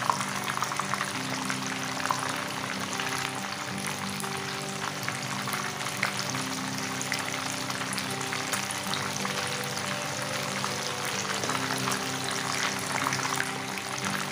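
Oil sizzling steadily with many small crackling pops around two silver pomfret (rupchanda) frying in a pan. Background music with long held notes plays underneath.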